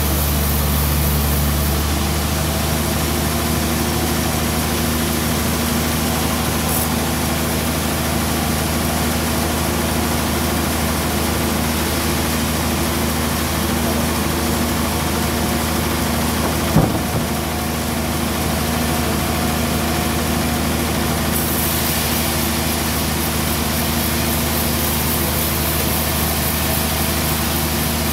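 Band sawmill machinery running steadily with a low, even hum, with a single sharp knock about seventeen seconds in.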